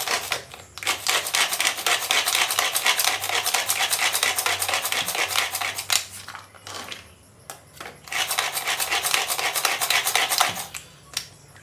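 Food processor chopping peeled garlic and onion: a fast, rattling clatter in two long runs, with a pause of about two seconds in the middle.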